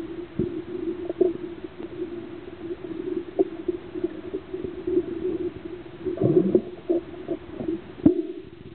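Underwater recording during a scuba dive: a steady hum with scattered clicks and knocks, a gurgle about six seconds in, and a sharper knock near the end.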